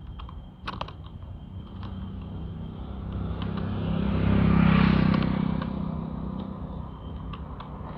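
A motor vehicle passes by on the road, its engine and tyre noise swelling to a peak about halfway through and then fading away. A few small plastic clicks come from the camera case and mount being handled near the start.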